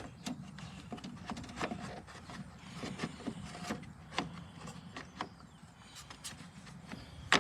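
Plastic headlight assembly being handled and worked into its mounting: scattered light clicks, taps and rubbing, with a sharper knock near the end.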